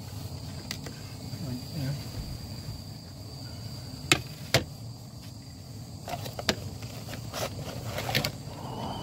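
Sharp clicks and knocks of a foam takeaway box and a plate being handled as chips are tipped out: two loud ones about four seconds in, then several softer ones later. Underneath runs a steady low rush, likely the gas burner heating the kettle.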